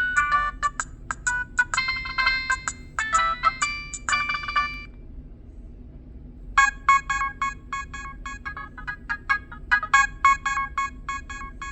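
Preloaded ringtones of a Nokia 6010 mobile phone: one tune of quick electronic notes ends about five seconds in, and after a short pause the next tune starts.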